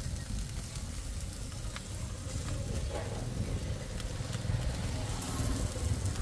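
Food sizzling and crackling as it cooks, with scattered small pops, over a louder steady low rumble.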